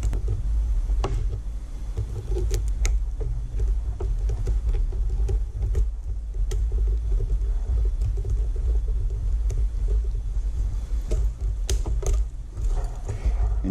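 Scattered light metallic clicks of a steel split ring and split-ring pliers as the ring is pinched open and spun onto a solid ring, over a steady low rumble.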